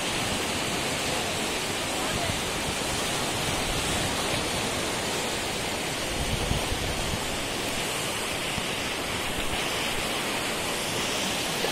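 Sea surf: small waves breaking and washing up the shallows of a sandy beach, a steady rush without let-up.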